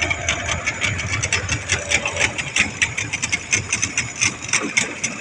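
Boat engine running steadily, with a rapid, even knocking over a low rumble.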